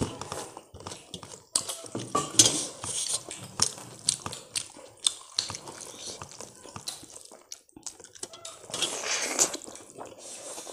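Wet squelching and clicking of fingers mixing rice with lentil dal on a steel plate, with chewing and mouth noises.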